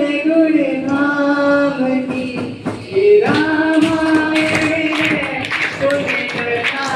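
A man singing unaccompanied into a microphone, holding long drawn-out notes with a short break for breath near the middle. Sharp percussive hits join in during the second half.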